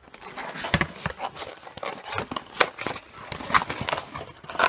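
Irregular rustling, scraping and clicks of packaging and box contents being handled close to the microphone.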